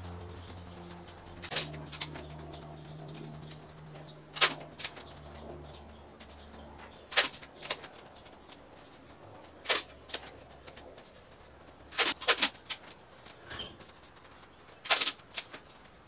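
Masking tape being torn off the roll into short strips: six quick, sharp rips about every two and a half seconds, often with a smaller second tear just after, over a low hum in the first few seconds.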